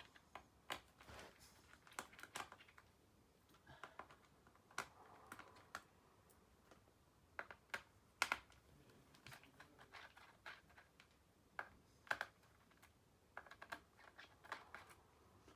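Faint, irregular clicks and taps of a screwdriver taking the small bottom-case screws out of a plastic HP Stream 11 laptop, with a few sharper clicks among them.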